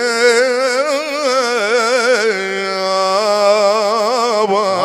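Mawwal music: one long melodic line wavering in a fast, even vibrato, held steadier and more level in the second half.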